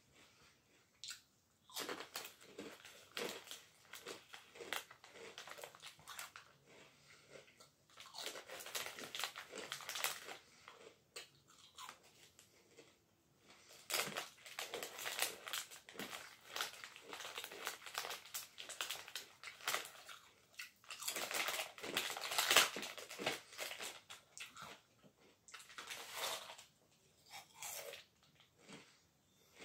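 Close-up crunching and chewing of ridge-cut potato crisps, in bouts with short pauses between mouthfuls, with the foil crisp packet rustling now and then as it is handled.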